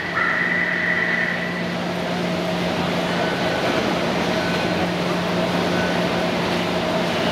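Metro station platform ambience at a stopped train as its doors open and passengers pour off: a steady hiss of crowd movement and footsteps over a constant low station hum. A steady high tone sounds for about the first second and a half, and a few faint short high tones follow.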